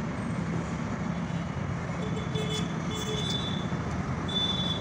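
Steady road traffic noise from nearby vehicles, with short faint high tones a few times in the second half.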